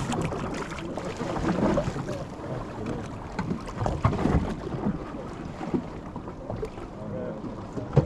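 Deck ambience on a fishing boat at sea: wind buffeting the microphone over water noise, with scattered light knocks.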